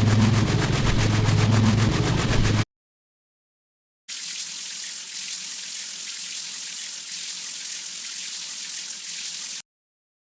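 A loud machine with a deep hum and a fast, even rattle, cut off abruptly about two and a half seconds in. After a second and a half of silence, a steady hiss of spraying water runs for about five and a half seconds and cuts off just as suddenly.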